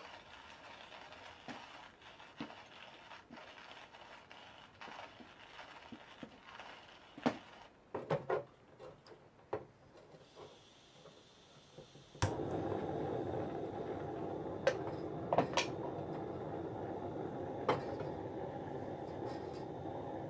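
Light metal clicks as a SOTO single-burner gas stove's legs and pot supports are unfolded. About twelve seconds in a sharp click lights the burner, and the gas flame then burns with a steady sound, broken by a few light metal knocks.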